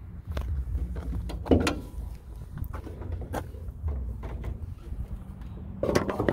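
A car hood being unlatched and raised: a string of sharp metallic clicks and clunks from the latch and hood, the loudest about one and a half seconds in and another cluster near the end, over a steady low rumble.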